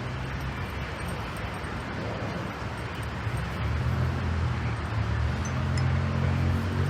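Jet airliner engines rumbling low and steady, growing louder through the second half.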